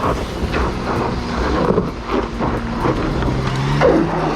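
Holden Adventra's 3.6-litre Alloytec V6 engine working hard under load as the wagon climbs a steep rutted track, its pitch rising a little after about three seconds, with scattered knocks.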